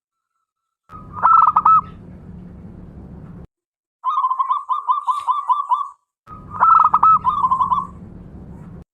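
Zebra dove (perkutut) singing: three phrases of rapid, staccato trilled cooing, broken by short silences. A low steady hum sits under the first and last phrases.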